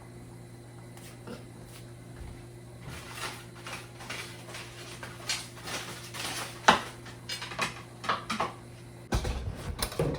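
Kitchen utensils clinking and scraping on dishes and pans while food is plated: a run of scattered clicks and scrapes, the sharpest one about two-thirds of the way through, with rougher knocking near the end. A steady low hum runs underneath.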